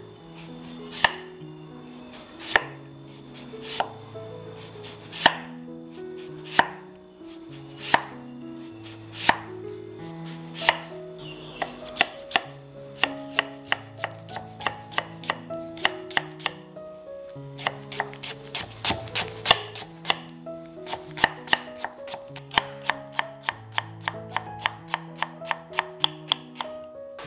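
Chef's knife cutting kohlrabi on a wooden chopping board: single slow slicing cuts about one every second and a half, then from about twelve seconds in quicker, steady chopping of two to three cuts a second as the slices are cut into thin strips.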